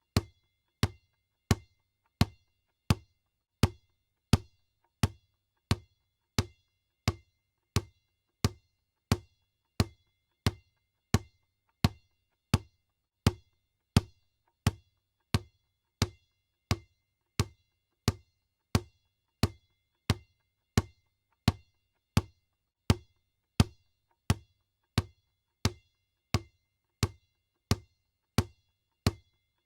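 Basketball bouncing on a hard floor in a steady, even rhythm, about three bounces every two seconds. Each bounce is a deep thump with a short ringing ping from the ball.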